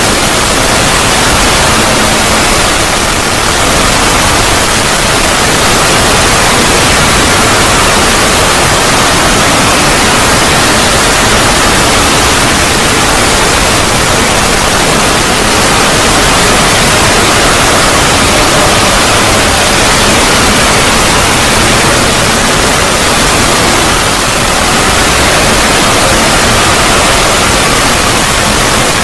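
Loud, steady static-like hiss covering the whole range from deep bass to the highest treble, with no breaks or changes: a drawn-out 'void' logo sound effect.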